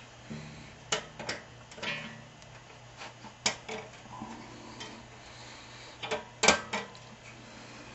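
Irregular sharp clicks and knocks, the loudest pair about six and a half seconds in, over a faint steady hum, as the old metal table fan is handled.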